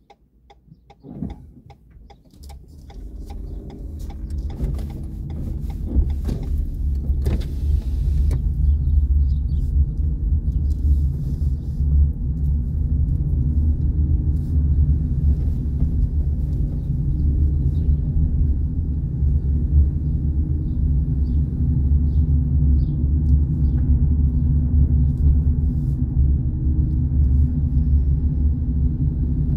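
Car noise heard from inside the cabin: it builds up over the first several seconds as the car pulls away and gathers speed, then settles into a steady low rumble of engine and tyres.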